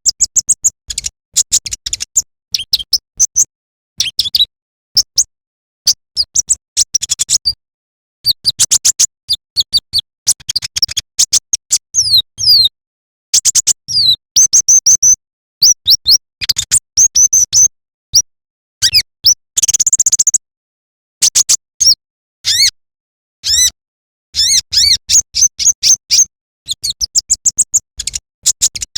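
Kolibri ninja (konin), a sunbird, singing rapid high twittering chirps and trills in quick bursts, each broken off by abrupt silent gaps.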